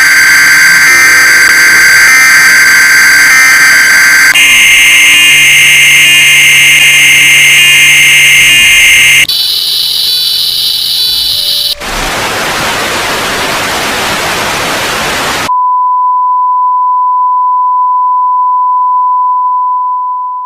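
Loud, harsh electronic alarm tones that step up in pitch twice, every four to five seconds. About 12 s in they give way to a few seconds of loud static, then to a plain steady beep at one pitch for the last five seconds.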